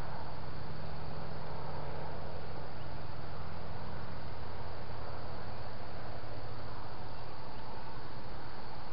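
Steady, even hiss with a low hum beneath it, picked up by a trail camera's built-in microphone; no distinct sound stands out.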